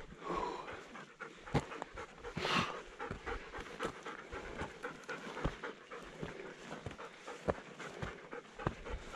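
A hiker breathing hard while climbing a steep stretch of trail, with short clicks of footsteps among the breaths.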